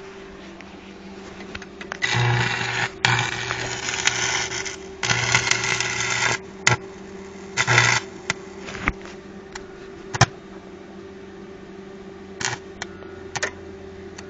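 Arc welding with the welder set at around 90–105 amps: the arc strikes and burns in short runs of one to two seconds, four times in the first eight seconds, then a few brief taps and strikes. A steady low hum from the welder runs underneath.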